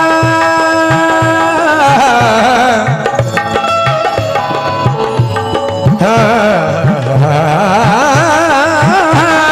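Instrumental qawwali accompaniment. A harmonium holds a steady chord, then a wavering melody with heavy vibrato takes over from about two seconds in, over a steady tabla beat.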